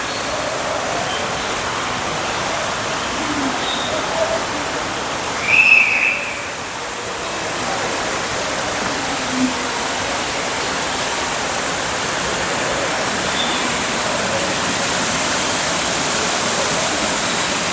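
Steady rush of an indoor waterfall, with a few short bird calls over it; the loudest call comes about six seconds in.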